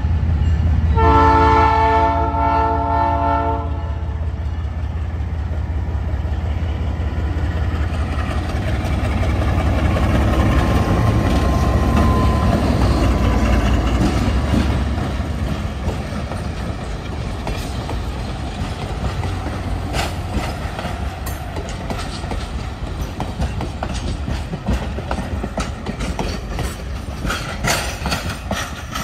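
The multi-chime air horn of MLW M420W diesel locomotive 3573 sounds one steady chord for almost three seconds, about a second in, over the low rumble of its diesel engine. The rumble eases after about fifteen seconds, and then the wheels click over the rail joints, more and more often toward the end.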